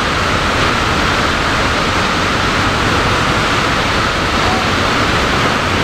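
Lodh Falls, a tall waterfall in monsoon spate with its water level risen, giving a loud, steady rush of falling water.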